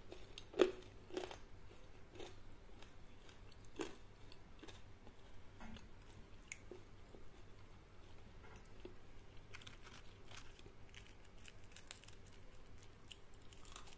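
Faint, close chewing and crunching of crisp fried cauliflower pakoras, with scattered small clicks, the loudest about half a second in.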